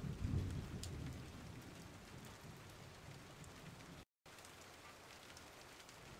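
Faint steady hiss, with a soft low rumble in the first second that fades away. There is a brief gap of total silence about four seconds in.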